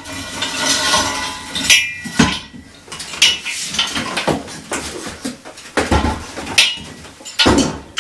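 Several irregular metallic clanks that ring after each strike, as a steel Acrow prop under a steel beam is tightened up by hammering and turning its adjusting collar.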